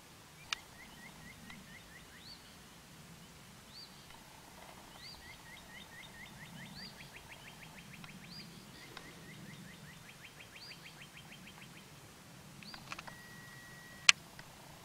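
Birds singing: repeated short rising notes and fast trills, over a faint low pulsing hum. A sharp click about half a second in, and a louder sharp click near the end, which is the loudest sound.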